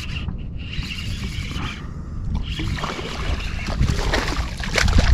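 Fishing reel being cranked, then a hooked speckled trout thrashing and splashing at the surface from about halfway through, over a steady rumble of wind on the microphone.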